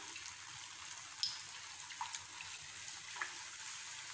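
Athirasam, a disc of rice-flour and sugar-syrup dough, deep-frying in hot oil: a faint, steady sizzle with a few small pops.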